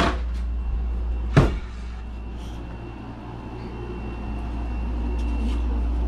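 A bedroom door being pushed open with two short knocks, then the steady low hum of a window air conditioner, growing a little louder toward the end, with a faint thin whine above it.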